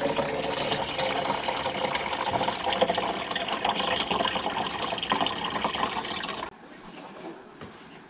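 Water running steadily, as from a tap, stopping abruptly about six and a half seconds in.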